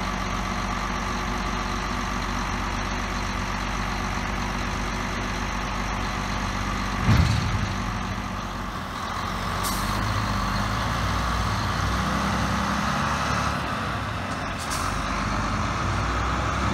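Renault Kerax 410dCi dump truck's diesel engine running steadily while the tipper body is lowered. About seven seconds in there is one loud bang as the body comes down onto the chassis. A short air hiss follows, and then the engine works harder as the truck pulls away.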